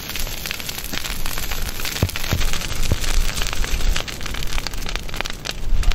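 Gorse burning on a bonfire, crackling and popping with many sharp snaps over a steady hiss.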